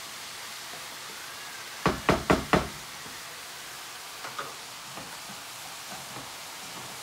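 A wooden spatula knocked four times in quick succession against the rim of a non-stick frying pan, about two seconds in, followed by a few faint clicks and taps.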